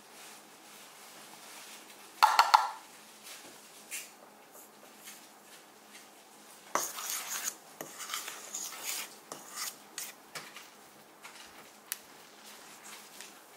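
Kitchen prep sounds on a stainless steel mixing bowl: a measuring cup knocks against the bowl with a short metallic ring, then a run of scraping and clinking as salt is tipped in. Near the end a knife ticks on a wooden cutting board.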